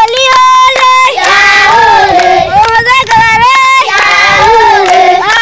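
A group of children singing and shouting a local welcome song together in high voices, with long held notes and bursts of sharp rhythmic beats.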